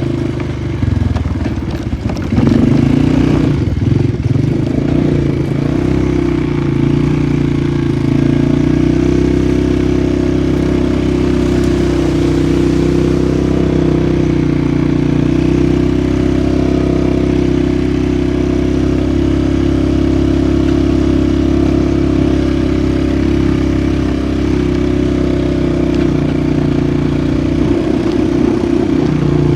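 Polaris 450 ATV engine running under way. The revs rise and fall over the first few seconds, hold steady for most of the ride, then shift again near the end.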